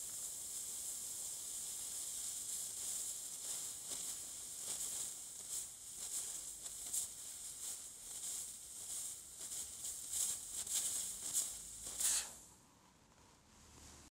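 CryoPen cryosurgery pen hissing as it sprays a fine jet of nitrous oxide onto a plantar wart to freeze it. The hiss is steady and high, with irregular louder spurts in the second half, and cuts off suddenly after about twelve seconds when the freeze cycle ends.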